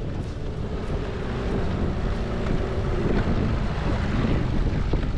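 Dinghy under way, its outboard motor running beneath heavy wind noise on the microphone.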